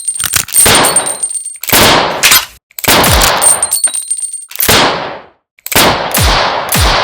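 Revolver gunshot sound effects: a string of sharp shots, roughly one or two a second, each with a decaying tail. Some shots carry a thin metallic ring and the later ones a deep falling boom.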